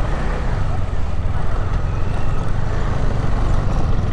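Motorcycle on the move, heard from the rider: steady engine and road rumble with wind buffeting the microphone.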